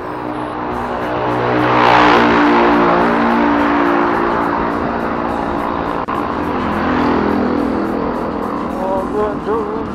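A motor vehicle passes close by, its noise swelling to a peak about two seconds in and then easing back. Road traffic runs on under background music.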